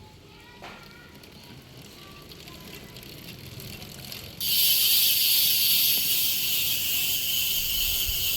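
Box Three bicycle freehub ratchet buzzing as the rear wheel freewheels. The loud, dense buzz starts suddenly about four seconds in and slowly eases off.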